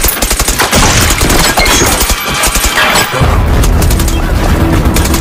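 Rapid automatic rifle fire, many shots overlapping in a dense volley. About three seconds in, a low held musical drone comes in under the shooting.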